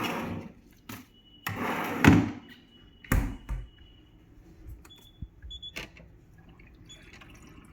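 Handling noises: two short rustling or scraping bursts, a heavy thump about three seconds in, then scattered light clicks and knocks.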